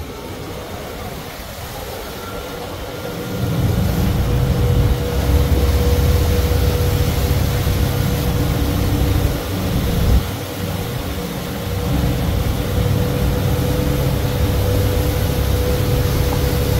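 Twin Suzuki 200 outboard motors throttled up, the boat getting under way: a low rumble that swells about three seconds in, with a steady engine tone over it and water rushing past the hull. The run clears water off the deck through the scuppers.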